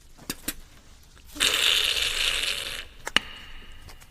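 A sizzling hiss like eggs frying in a hot pan, lasting about a second and a half, with a few short clicks before and after it.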